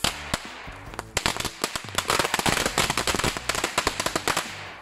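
Two homemade firecracker bombs, each packed with 60 small K0201 firecrackers, going off in a rapid string of sharp cracks. A single bang opens it and a few scattered pops follow; the cracks then crowd together into a dense crackle for about three seconds and stop just before the end.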